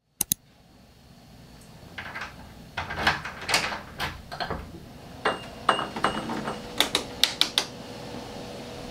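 Clicks, rattles and knocks of a glass shop door being unlocked, pushed open and shut, with a few short beeps in the middle.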